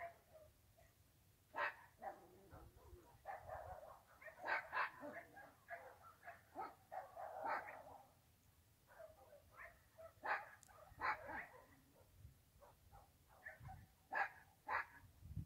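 Dogs barking: short, sharp barks coming in irregular clusters, faint against a low background rumble.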